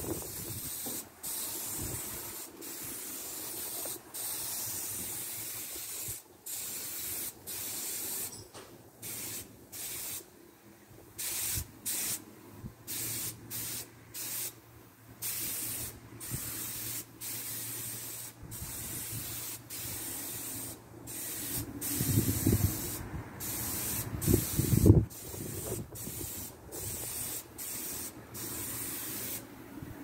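Hose-fed paint spray gun hissing in many short on-off bursts as its trigger is pulled for each stroke, feather-spraying and blending touch-up paint onto a garage door. A louder low rumble swells briefly near the end.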